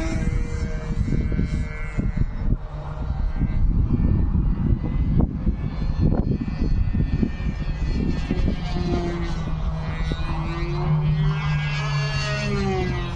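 A 40-size RC F3A aerobatic model airplane's engine buzzing in flight, its pitch rising and falling as the plane manoeuvres and passes. Wind buffets the microphone with heavy rumbling gusts, strongest in the first half.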